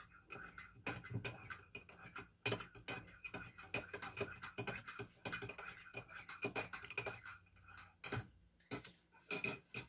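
A spoon stirring a hot drink in a glass, clinking against the glass in quick, irregular taps with a light ring.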